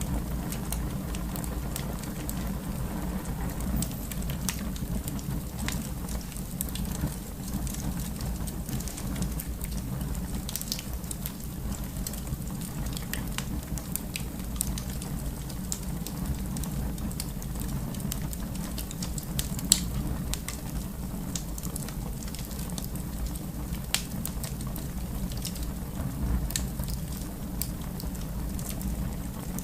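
Wood fire burning in a fireplace: a steady low rumble of flames with frequent small crackles and pops, one sharper pop about twenty seconds in and another a few seconds later.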